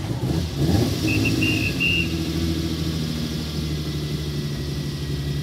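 Ferrari 330 GT's V12 engine blipped up and back down, then running steadily at low revs as the car moves off. A brief high whistle-like squeal about a second in.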